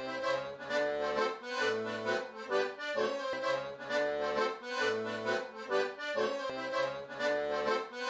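Piano accordion playing a tune: a melody in sustained notes over rhythmic bass notes that come and go in a steady pattern.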